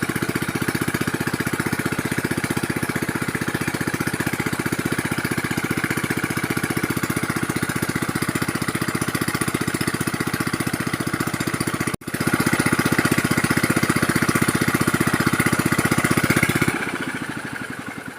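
A small engine running steadily with a fast even beat, cut briefly about two-thirds of the way in, then slowing and winding down near the end.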